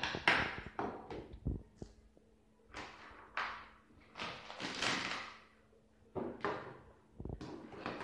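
Knocks and scraping clatter of a child's toy cookware: small stainless steel pots, lids and plastic plates and pieces handled and set down on a tabletop. A string of separate short sounds, the longest and loudest about five seconds in.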